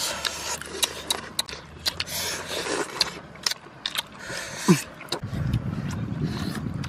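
Cooked snail shells clicking against one another and rustling on a paper plate as fingers pick through them, many sharp little clicks. About five seconds in this gives way to a steady low rumble.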